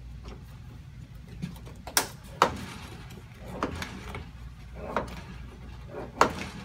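Westinghouse SPB100 circuit breaker's closing spring being charged by hand with its pump handle: a series of sharp mechanical clunks and clicks, one roughly every second, one for each stroke of the handle.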